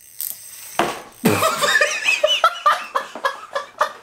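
A man laughing hard in rapid bursts, starting about a second in.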